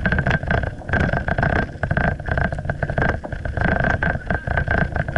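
Muffled rumble and irregular knocks of a body-worn action camera in its housing as the wearer walks, with a steady high tone behind.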